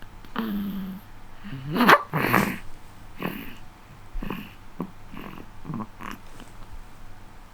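Newborn baby snoring and snorting in her sleep: a string of short snores, the loudest about two seconds in, then smaller ones about every half second.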